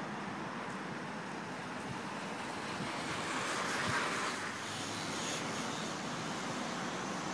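Steady outdoor rush of noise, swelling briefly about four seconds in as a small BMX bicycle rides close past on the asphalt.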